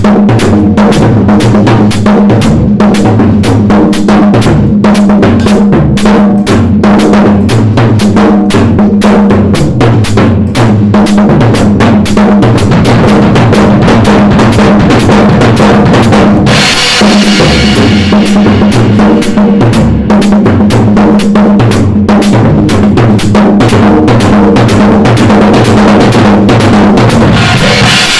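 Drum kit played continuously in a loud, busy groove of fast bass drum, snare and tom strokes, during a sound check before recording. Cymbal crashes wash over the beat about two-thirds of the way in and again near the end.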